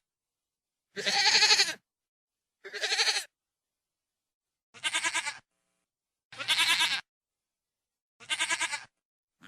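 Goat bleating: five separate wavering bleats, each under a second long, spaced a second or so apart.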